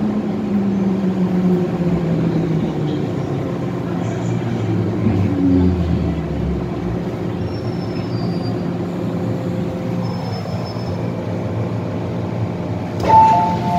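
MTR M-Train running with its traction motors whining, the pitch falling over the first several seconds as the train slows, over steady wheel and car rumble. Near the end a two-note chime sounds.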